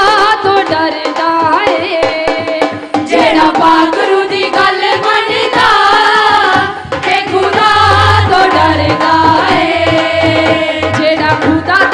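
Women's voices singing a devotional hymn through microphones and a PA, over a steady hand-drum rhythm. A deeper drum beat comes in about two-thirds of the way through.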